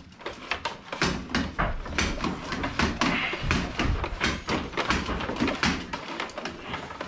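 Lighting cable being pulled by hand through holes drilled in timber studs and joists: irregular scraping and knocking of the cable against the wood.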